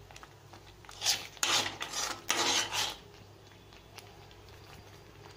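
Spoon scraping against a kadai while stirring thick gooseberry thokku paste, mixing in salt just added: about three rasping strokes between one and three seconds in, then only a faint steady hum.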